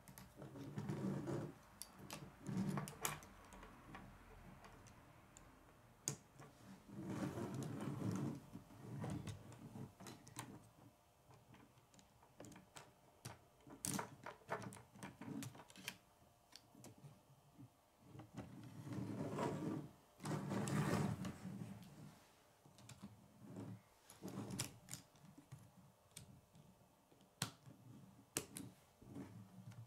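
Plastic K'nex rods and connectors being handled and snapped together: irregular sharp clicks and snaps, with a few longer spells of busy plastic clatter, the loudest about two-thirds of the way in.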